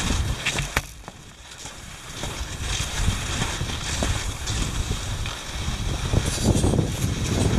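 Wind buffeting the microphone over the hiss of cross-country skis gliding on a groomed snow track, with two sharp clicks near the start. It drops quieter for about a second, then builds again.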